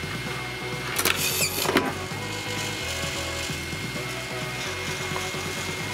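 Electronic background music with a steady beat. About a second in, a short mechanical rattle lasting under a second comes from the homemade wooden vending machine's dispensing mechanism, as a snack tube turns over on its wooden shelf.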